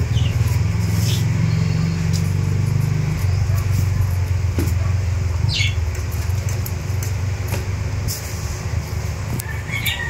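A small petrol engine idling steadily with a low, even hum, with a few light clicks from hands handling the saw's bar and chain.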